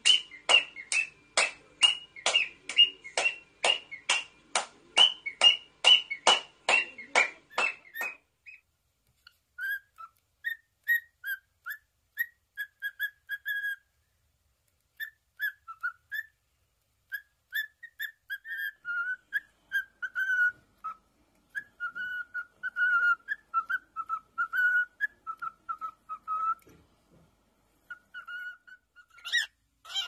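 Pet cockatiel calling: a fast run of sharp repeated chirps, about three a second, that stops about eight seconds in, then whistled warbling song in short broken phrases, with a sharper call near the end.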